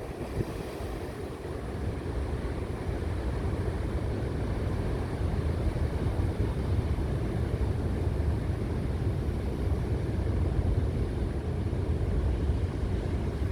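Steady low rumble of sea surf and wind on the coast, the wind buffeting the microphone, building slightly in the first couple of seconds and then holding steady.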